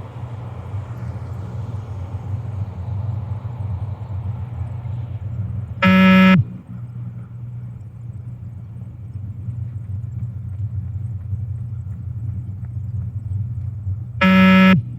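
Two electronic beeps from a beep test (multistage fitness test) recording, about eight seconds apart. Each is a loud, buzzy tone lasting about half a second and marks the moment the runner must reach the line. A steady low hum runs underneath.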